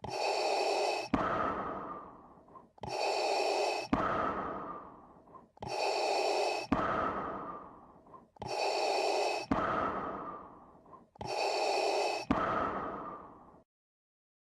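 Slow, heavy breathing through a gas mask: five breaths, one about every three seconds, each a strong hiss cut off by a sharp click, followed by a fading hiss. It stops about a second before the end.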